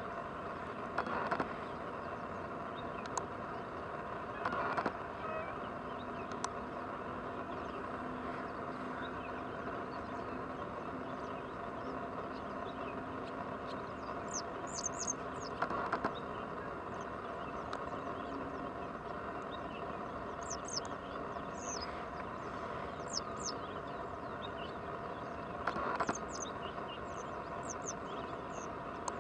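Wetland ambience: a steady background hum, with clusters of high, thin bird chirps from about halfway on and a few brief splashes from a duck preening in shallow water.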